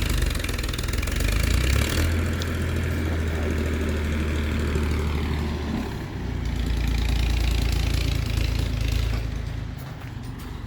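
Heavy diesel engine of earthmoving machinery running under varying load. Its pitch steps up about two seconds in, drops back about six seconds in, and it runs louder for a few seconds after that.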